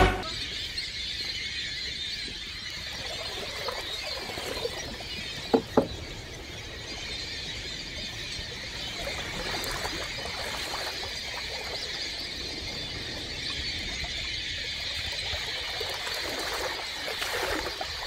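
A large flock of migrating waterbirds calling together: a dense, steady chorus of many high calls. A brief sharp loud sound stands out about five and a half seconds in.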